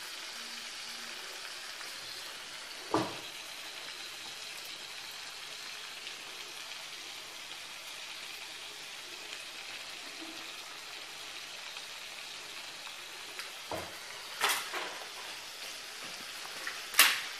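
Meat and oil sizzling faintly in a clay tagine over a gas burner, a steady hiss as the meat starts to sear. A few knocks come over it, the sharpest near the end.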